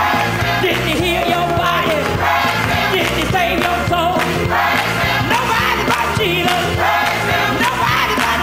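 Live gospel music: a woman sings lead into a handheld microphone over a choir and band, with a steady bass line underneath.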